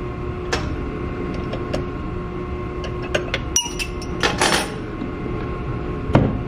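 Scattered metal clicks and knocks of a hand tool working the spindle of a Haas desktop mill as its cutter is changed by hand, over a steady hum. A quick run of clicks comes about four seconds in, and the loudest knock comes near the end.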